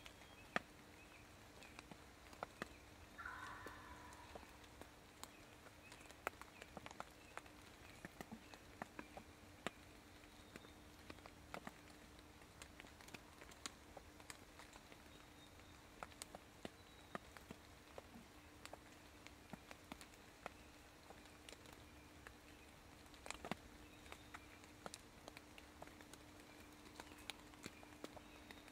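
Near silence in woodland, broken by many scattered faint ticks and crackles and one brief call about three seconds in, over a steady low hum.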